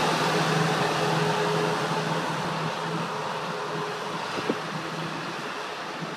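Steady hum and rush of a running vehicle, slowly fading, with a faint click about four and a half seconds in.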